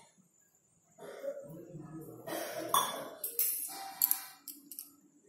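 Kitchen clatter: metal utensils and pans clinking and knocking, with a few sharp clinks. It starts about a second in and dies away near the end.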